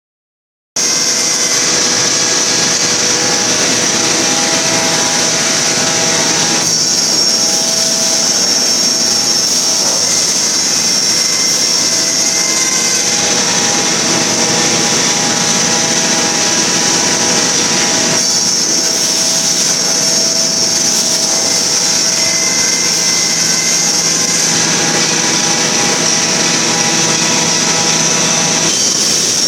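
Steady, loud running noise of particleboard production-line machinery at the hot-press loader and unloader, a constant high whine over a dense mechanical hum, with the mix shifting every few seconds.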